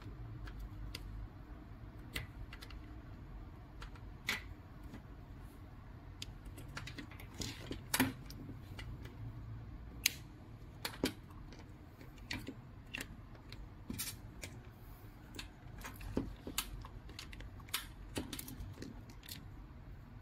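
Irregular clicks and light taps of small plastic and metal parts being handled as an RC car's coil-spring shock absorbers are fitted to its plastic suspension arms, over a faint low steady hum.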